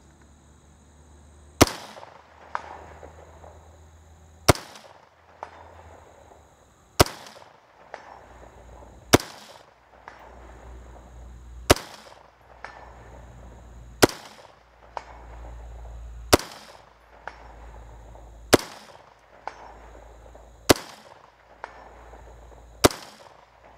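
Early AR-15 rifle fired in slow, aimed semi-automatic shots: ten sharp gunshots about two to two and a half seconds apart, each with a short echo trailing off.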